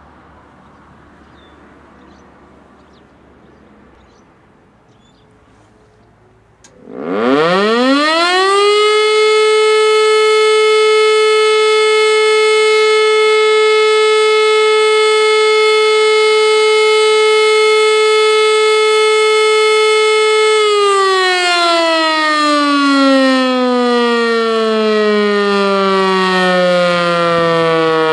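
E57 electromechanical fire siren howling into life, its pitch rising very quickly to a steady tone that holds for about twelve seconds. The pitch then falls steadily as the siren winds down: one tone of the fire-alarm signal from a unit still in good condition.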